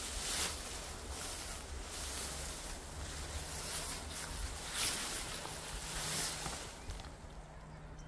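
Wind buffeting the microphone outdoors: an uneven low rumble with a hiss that swells every second or so and eases off near the end.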